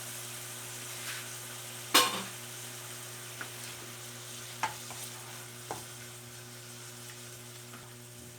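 Sizzling in a pan of sautéed vegetables with vinegar, sugar and a splash of water heating up, with a utensil stirring and knocking against the pan a few times, the loudest knock about two seconds in. A low steady hum runs underneath.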